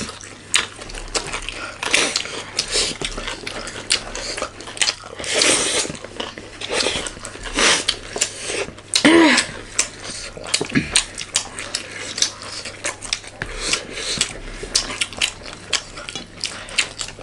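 Close-up eating sounds: chewing and mouth noises with frequent light clicks of utensils and food against plates. A brief hum-like vocal sound comes about nine seconds in.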